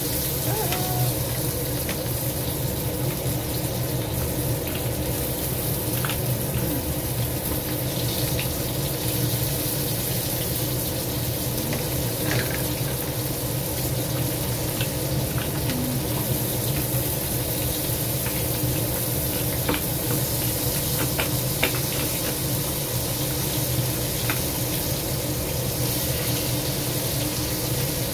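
Crab pieces frying in oil in a wok: a steady sizzle with scattered small pops and crackles, over a low steady hum.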